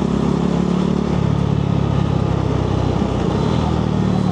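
Motorcycle engine running steadily while riding, heard from the bike itself, over a haze of road noise.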